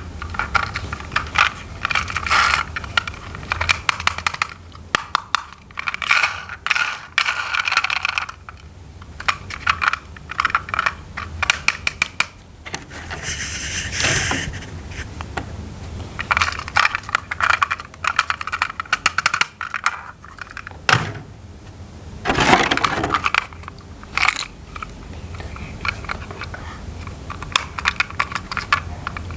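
Small plastic toy parts being handled: quick irregular clicking and rattling, with a couple of brief louder scraping swishes midway and later.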